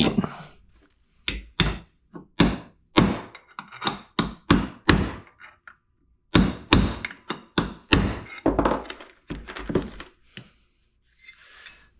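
Hammer blows on a punch driving a pressed-in bushing out of an aluminium ATV steering knuckle. The blows come in two runs of about two to three a second, with a short pause near the middle. The bushing is moving only slowly under the blows.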